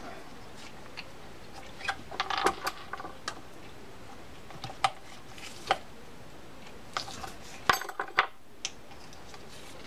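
Small metal parts of a Shimano Corsair 400 fishing reel clicking and clinking as a nut cap is worked into place and lined up with its screw. Scattered light taps come in small clusters, with the sharpest click about three-quarters of the way through.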